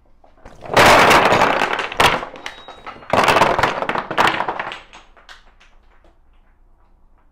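A stacked pyramid of wooden door cores cut by 2 1/8-inch hole saws collapsing onto a workbench: a loud clatter of wooden plugs knocking against each other and the bench. It comes in two waves, starting about a second in and again about three seconds in, then thins to a few scattered knocks as the last pieces roll and settle.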